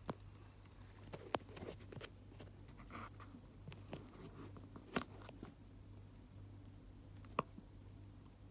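Faint rustling of shredded paper bedding in a hamster enclosure, with four sharp clicks spread through it and a low steady hum underneath.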